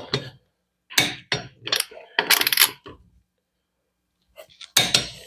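Click-type torque wrench ratcheting and clicking on wheel lug nuts: a series of sharp metallic clicks with quiet gaps, including a quick run of ratchet clicks about two seconds in. The wrench's click is the sign that a nut has reached its set torque of 100 foot-pounds.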